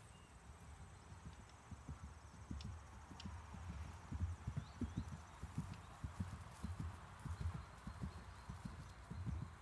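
A grey horse cantering on turf: dull hoofbeat thuds in the galloping three-beat rhythm, faint at first and louder from about four seconds in as it comes past.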